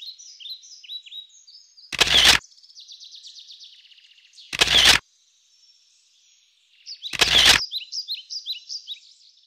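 Small birds chirping, with quick falling chirps and a buzzy trill. Three short loud bursts about two and a half seconds apart cut across the birdsong, and the sound drops out completely for a moment in the middle.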